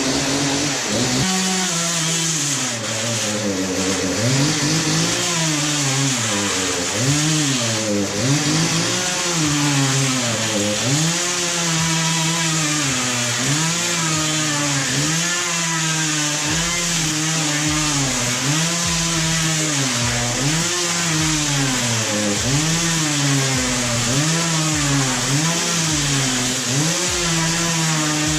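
Petrol chainsaw running hard, its engine speed dropping and picking back up a little less than once a second, as it does when the chain is pushed into something and bogs under the load.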